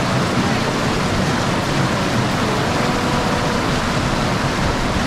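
Creek water rushing steadily, an even, unbroken hiss of flowing water.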